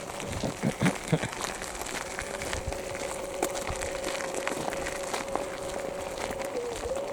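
Footsteps crunching and crinkling on a leaf-littered forest path, with scattered small clicks. A thin steady tone of unknown source comes in about two seconds in and holds.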